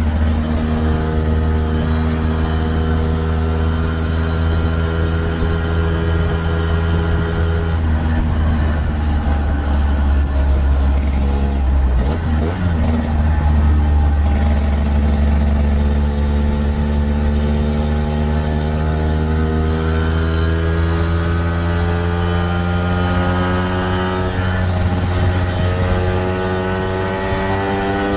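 1964 Lambretta Series 3 scooter's single-cylinder two-stroke engine pulling in top gear at road speed, with wind rumble. The note holds steady, breaks briefly about twelve seconds in, then climbs slowly as the scooter gathers speed, the revs in top kept low by a newly fitted gear ratio.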